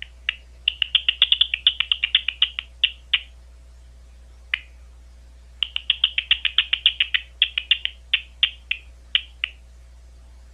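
Big brown bat calls made audible by a bat detector: a fast run of short, sharp chirps, a lone chirp, then a second run that spaces out toward the end. A steady low electrical hum lies underneath.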